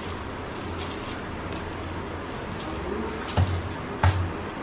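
Parathas cooking on a hot iron tawa over a gas burner: a steady low hiss and hum. About three and a half and four seconds in come two sharp clacks of metal tongs against the tawa as a paratha is turned.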